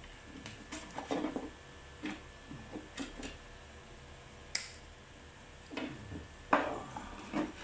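Hands handling electric-scooter wiring and a plastic housing: scattered small clicks and knocks, with a sharp snip of wire cutters about halfway. Louder rustling and scraping of the plastic shell and wires near the end.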